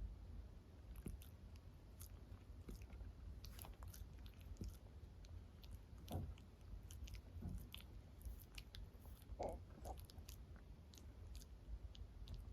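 Miniature dachshund licking: faint, irregular wet clicks and smacks.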